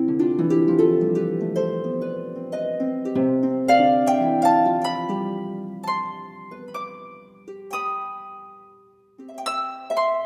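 Background music of a harp being plucked, single notes and chords ringing and decaying. The phrase thins out and almost fades before fresh notes come in near the end.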